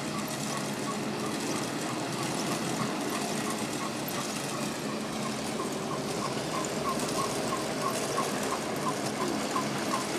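Road-repair machinery running steadily, with a short high chirp repeating about two and a half times a second.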